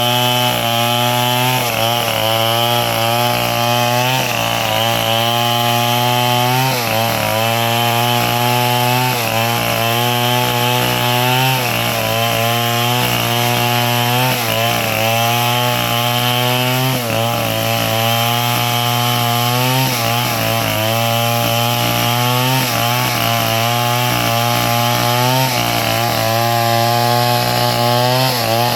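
Engine-driven sawmill running steadily, its engine note dipping briefly and recovering every second or two.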